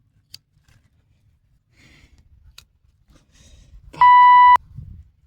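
A single loud, steady 1 kHz censor bleep, about half a second long, about four seconds in, cutting off abruptly. It is laid over a word, most likely a swear word.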